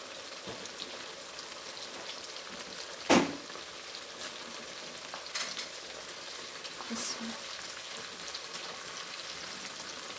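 Beef pieces frying in hot oil in a karahi, a steady sizzle with small crackles and spits, as the already-cooked meat is crisped. About three seconds in comes one sharp, loud knock, the loudest sound in the stretch.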